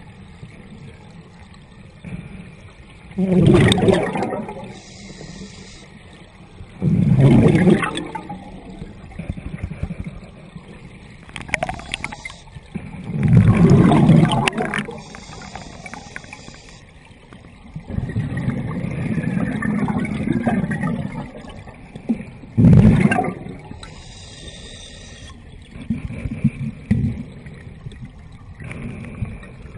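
Water sounds heard underwater through a camera housing in spring water: a steady muffled rumble and bubbling, broken by four louder gurgling surges, each a second or so long.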